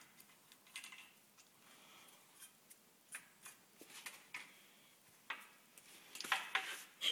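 Light, scattered metallic clicks and taps from hands working the perforated rotating screen and starter clutch on the flywheel of a 5 hp Briggs & Stratton engine, with a quicker run of louder clicks about six seconds in.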